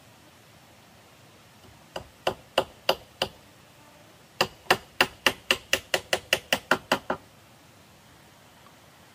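Hammer knocking on bamboo at a fence post: five blows about two seconds in, then after a short pause a quicker run of about a dozen, roughly four a second.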